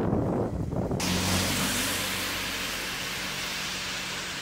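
Wind buffeting the microphone, then after about a second an abrupt change to a steady outdoor hiss with a low car engine hum that fades away.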